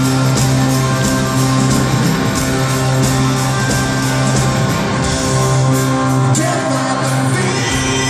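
Live rock band playing electric guitars, bass and drums, with singing, heard from among the audience in an arena.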